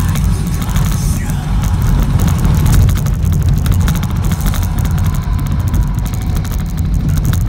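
Inside a moving car: steady low road and engine rumble with frequent small knocks and rattles as the car drives over a rough single-track lane.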